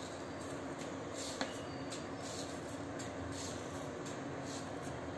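Milk simmering in a nonstick pan, with faint soft scrapes and one small click about a second and a half in as sugar is spooned in.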